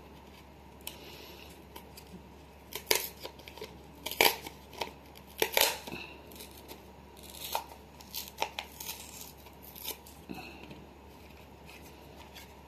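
Lip balm blister pack being torn open by hand: the cardboard backing card rips along its tear strip and the plastic blister crackles, in irregular snaps and crinkles, the sharpest a few seconds in.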